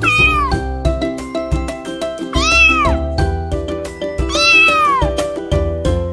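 Three drawn-out cat meows about two seconds apart, each bending up and then down in pitch, over background music with a steady beat.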